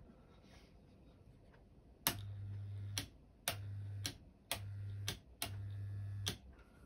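Homemade toroidal-transformer spot welder switched on in four short pulses, each a low mains hum of about half a second to a second that starts and stops with a sharp click. Each pulse is a weld pulse through the probes into nickel strip on an 18650 cell.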